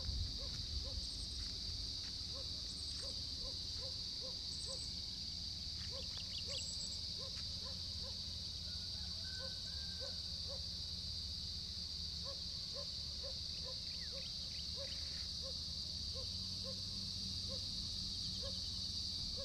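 A steady high-pitched drone of insects, with a short low call repeated about twice a second and a few higher chirps of birds in the first seven seconds, over a low rumble.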